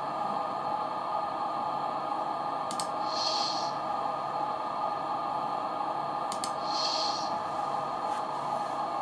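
Sound from a LokSound 5 Fx function-only sound decoder in an HO model cab car, heard through its small speaker: a steady hum with two short air hisses about three and a half seconds apart, each just after a faint click.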